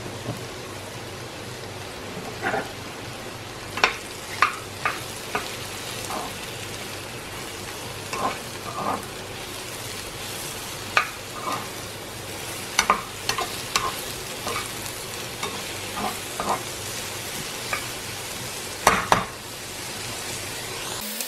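Chopped button mushrooms sizzling steadily in oil in a frying pan, while a utensil stirs them and knocks and scrapes against the pan in short, irregular clacks; the loudest come near the end.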